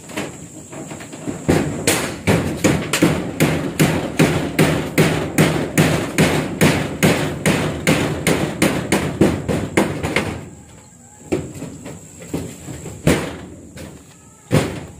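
Hammer blows in a fast, even run, about three a second, for several seconds, then stopping; two single blows follow near the end.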